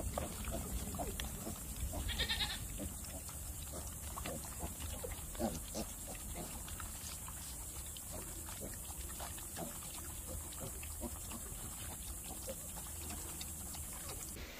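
A group of pigs and piglets eating at a trough, with many small chewing and smacking sounds, and a brief high squeal about two seconds in.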